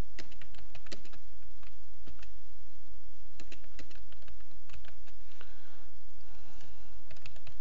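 Typing on a computer keyboard: irregular key clicks with a pause of about a second near the middle, over a steady low hum.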